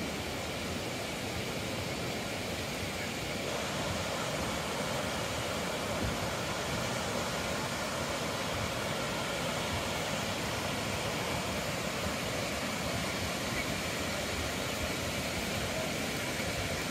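Steady rushing roar of the Kravica waterfalls; it grows fuller about three and a half seconds in.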